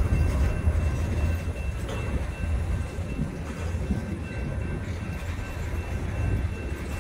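Freight cars rolling past at close range, their wheels on the rails making a steady low rumble.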